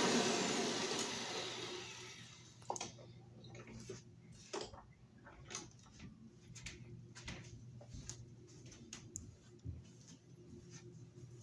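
Hoover Soft & Light vacuum cleaner's motor spinning down after being switched off, its noise fading out over about two seconds. After that come a few faint scattered clicks and taps.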